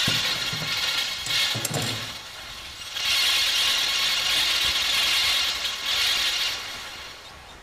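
Sewing machine running as an instrument, a fast mechanical clatter of needle strokes. It runs in two stretches, about two seconds, a brief lull, then about three and a half seconds, tailing off near the end.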